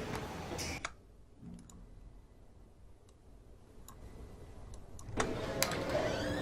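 Edited room-ambience track with added sound effects playing back: a steady background noise bed cuts off abruptly just under a second in. Faint ticks follow, then the ambience returns suddenly about five seconds in with a couple of sharp knocks.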